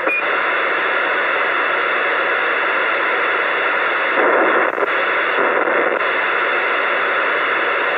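CB radio receiver hissing loudly with steady static through its speaker, an open channel with no voice on it. There is a short beep at the very start.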